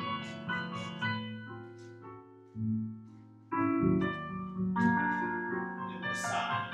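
Piano music accompanying a ballet barre exercise: chords and melody notes struck and left to ring, with a quieter gap a little before the middle before the playing picks up again.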